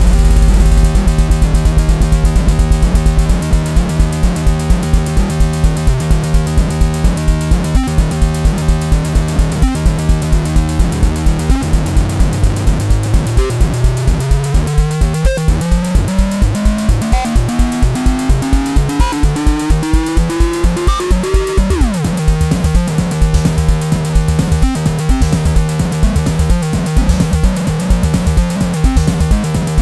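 Electronic jam: an Arturia Drumbrute Impact drum machine plays a steady beat of about four hits a second under held Arturia Minibrute 2s synth tones. About twelve seconds in, a synth line slowly rises in pitch for some ten seconds, then drops back sharply.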